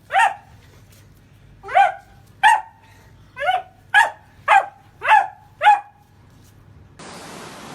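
A dog barking: eight short, high-pitched barks at uneven spacing. Near the end a steady hiss cuts in suddenly.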